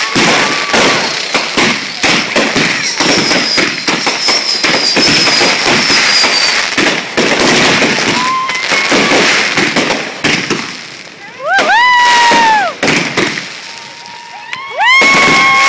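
A long string of firecrackers crackling and popping rapidly for about ten seconds, with a thin falling whistle among them. After a quieter spell with one short rising-and-falling pitched tone, a steady pitched tone starts near the end.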